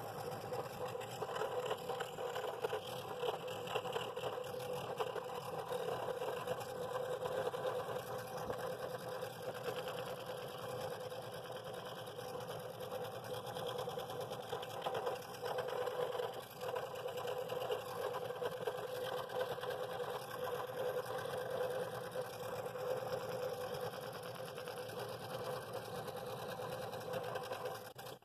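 Scroll saw running steadily, its reciprocating blade cutting rings out of a pine board.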